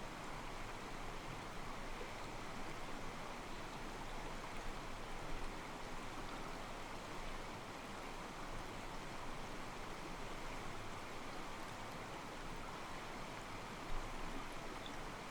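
Calm mountain stream, water sloshing and trickling over rocks in a steady wash, with a slightly louder splash about 14 seconds in.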